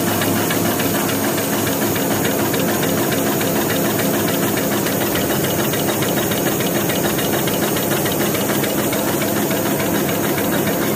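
Automatic 300x300 table napkin paper folding machine running, a steady rapid mechanical clatter of its rollers and folding mechanism.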